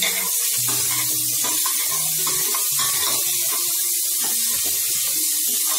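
Chopped onions frying in hot oil in an open pressure cooker, a steady sizzle.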